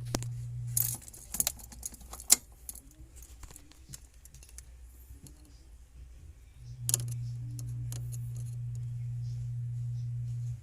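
Sharp clicks and light metallic rattles of small parts being handled at the fuse and relay box: several in the first two and a half seconds and one about seven seconds in. A steady low hum stops about a second in, comes back near seven seconds and cuts off suddenly at the end.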